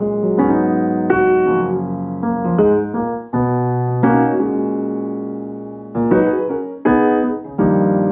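Background piano music: notes and chords struck every half second to two seconds, each ringing and fading away.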